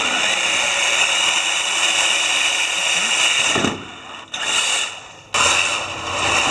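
A robot's electric motors whining at speed as the cube gripper's spinning compliant wheels pull in a cube. The whine cuts off with a dull thump a little past halfway, comes back in a short burst, then starts up again near the end.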